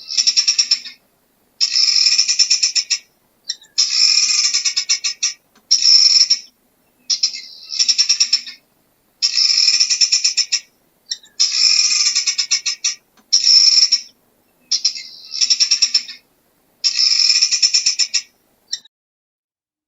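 An animal giving about a dozen rapid, high-pitched trilling calls in quick succession, each lasting about a second with short pauses between, stopping near the end.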